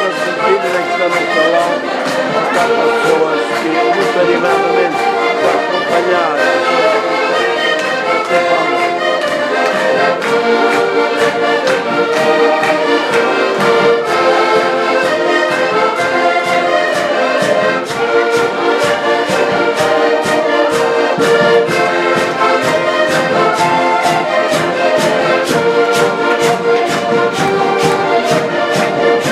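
Several accordions playing a lively traditional folk tune together, over a steady quick percussive beat.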